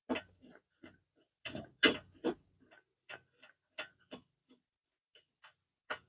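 Irregular metallic clicks and ticks of a hex key turning a screw that fixes a metal mounting rail to a solar panel frame, loudest about two seconds in and pausing near the end.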